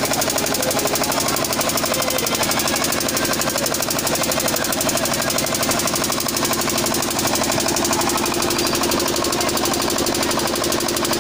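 Drums played in a fast, unbroken roll, loud and even throughout, with a low steady tone running beneath.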